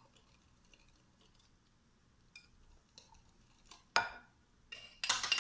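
Small hand whisk stirring a thick egg-yolk and milk custard in a glass bowl, with faint ticks against the glass, then a sharp clink about four seconds in and a cluster of ringing clinks near the end.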